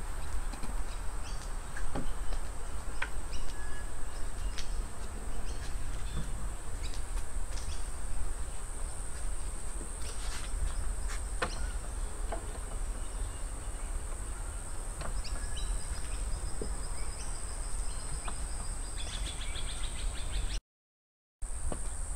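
A steady high-pitched insect drone, with scattered sharp clicks of platform high-heel boots stepping on concrete and wooden steps. The sound cuts out for under a second near the end.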